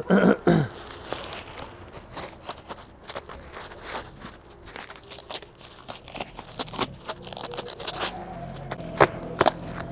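Plastic bubble wrap crinkling and crackling as it is pulled and stripped off a heavy clay tandoor, in many quick irregular crackles. A low steady hum comes in about eight seconds in.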